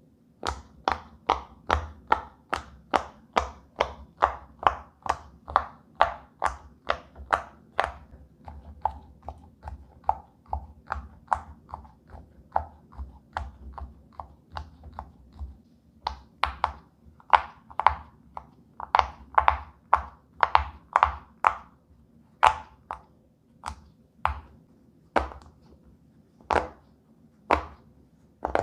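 Silicone pop-it fidget toy bubbles being pushed through one after another, each giving a short pop, about two to three a second. The pops come more sparsely near the end.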